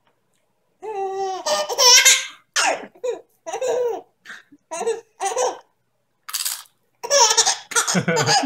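A baby laughing in repeated short bursts, starting about a second in. The laughs rise to high squeals around two seconds and come thick and fast near the end.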